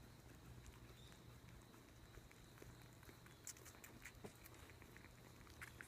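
Near silence: faint steady room hum with a few faint, soft clicks scattered through it.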